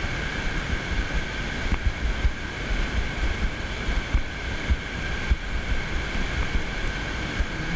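Small surf waves washing in over the sand, with wind buffeting the microphone in irregular low thumps.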